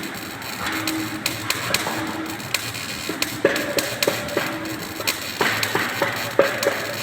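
Hammer striking metal: an irregular series of sharp strikes, several of them ringing briefly, over background music.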